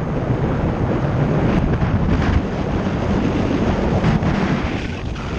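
Wind buffeting the microphone of a camera on a moving bicycle: a steady, uneven rumble of rushing air.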